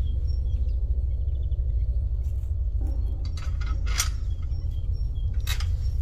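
A metal-framed chain-link gate being handled: a few sharp metallic clicks and clinks, the loudest about four and five and a half seconds in, over a steady low rumble. Faint bird chirps can be heard.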